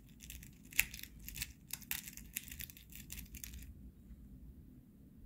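Lead .22 H&N Crow Magnum hollowpoint airgun pellets clinking and rattling against each other and their open metal tin as fingers stir through them. A quick run of small metallic clicks that stops a little under four seconds in.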